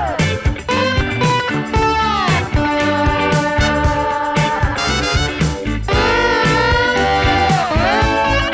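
Background music: a sliding, twangy guitar lead over a steady beat.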